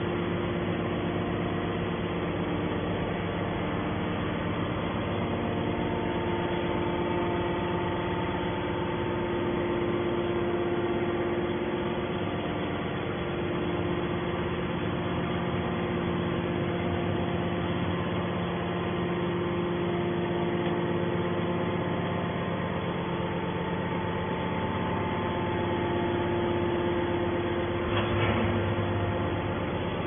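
Triple-action hydraulic scrap metal baler's power unit running with a steady hum made of several steady tones, with one short knock about two seconds before the end.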